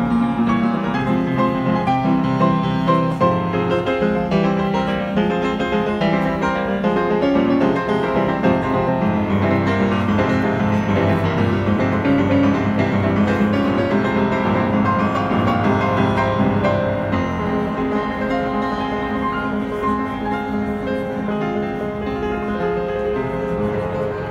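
Steinway grand piano playing a classical piece: dense, continuous runs and chords over held bass notes, growing a little softer over the last few seconds.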